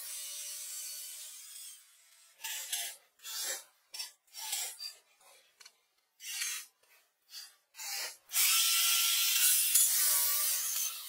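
Rasping, scraping sound of a hand-held tool abrading wooden pallet boards: a run of short strokes, then a louder steady stretch from about eight seconds in.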